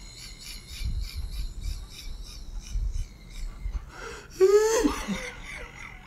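A man's single loud, hoarse, cough-like vocal outburst about four and a half seconds in, lasting under a second, its voice sliding down in pitch.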